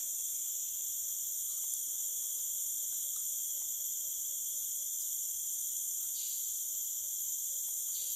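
Steady, high-pitched drone of a forest insect chorus, with a faint, rapid, even ticking beneath it from about two seconds in.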